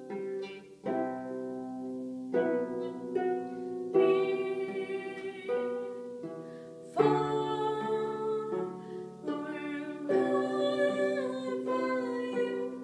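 Lever harp being played, plucked notes and chords over a steady bass, with a strong new chord struck about seven seconds in. A young woman's voice sings along over the harp in the second half.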